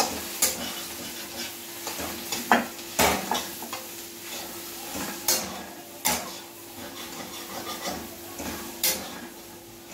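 Soaked soya chunks frying in oil in a kadhai with a steady sizzle, while a metal spatula stirs them, scraping and clinking against the pan every second or so.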